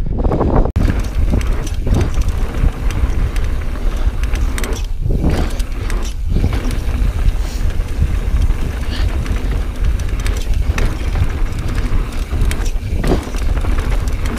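Wind buffeting the action-camera microphone as a Transition Sentinel full-suspension mountain bike rolls fast down rough dirt singletrack. Tyres run over the dirt and the bike rattles and clicks over small rocks and bumps, with a brief dropout under a second in.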